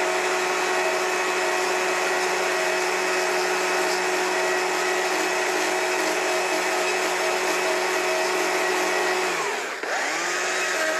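Small two-stroke chainsaw running at high revs while the nose of its bar thins the stem of a small carved mushroom. The engine note holds steady, sags briefly a little before the end, then climbs back up.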